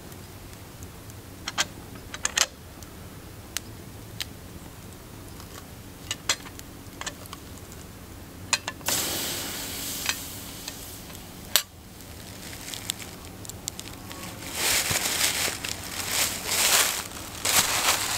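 Wood campfire crackling with scattered sharp pops. About halfway through a pan is moved onto the fire with a rushing scrape that ends in a clank, and over the last few seconds footsteps crunch and rustle through dry fallen leaves.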